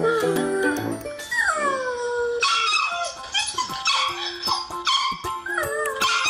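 A dog whining and yipping, with background music: a long falling whine about a second in, then a run of short high yips, and a wavering howl near the end.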